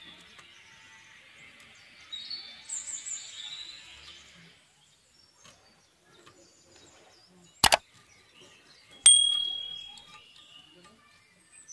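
Small fish being scaled against a boti's fixed blade, a light scraping, with birds chirping in the first few seconds. Near the end come two sharp clicks close together, then a metallic ding that rings for about a second.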